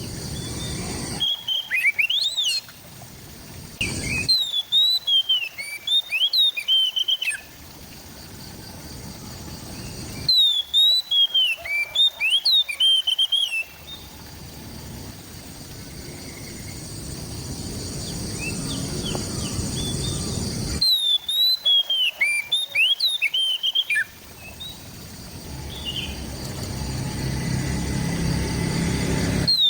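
Oriental magpie-robin (kacer) singing: four bursts of rapid, varied whistled notes sweeping up and down, each lasting one to three seconds, with pauses between them. During the pauses a low, steady background noise slowly grows louder.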